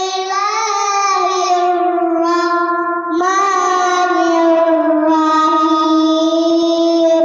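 A girl singing long, held notes that slide gently between pitches, with a short break for breath about three seconds in.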